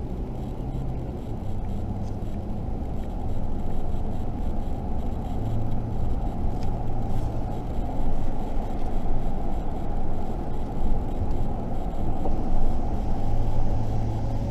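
A vehicle driving along a road, heard from inside the cab: a steady engine hum with road and tyre noise, swelling slightly in loudness partway through.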